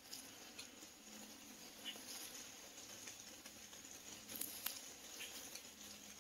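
Faint footsteps through wet fallen leaves on a forest trail: soft, irregular rustles and light crunches.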